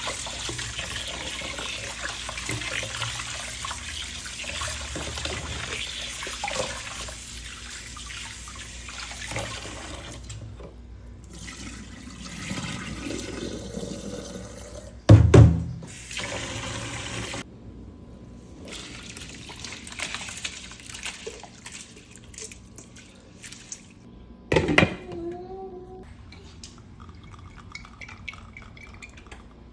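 Water running from a kitchen tap into a sink or bowl, a steady splashing rush that fades after about ten seconds. Two loud knocks come later, about halfway through and again near the end.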